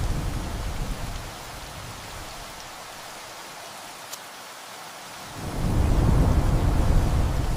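Steady heavy rain on a tin roof under a thunderstorm: a low rolling rumble of thunder dies away about a second in, leaving the rain alone, and another rumble of thunder swells up again just past the middle.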